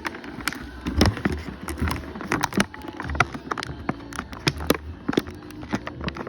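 Toy packaging being handled and opened: irregular crackles, clicks and small knocks of plastic and cardboard, with occasional dull thumps.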